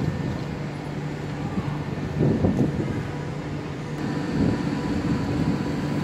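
Steady hum of a PKP Intercity Pendolino (ED250) high-speed electric train standing at the platform, with faint constant whining tones over it. The sound grows louder for a moment a little over two seconds in.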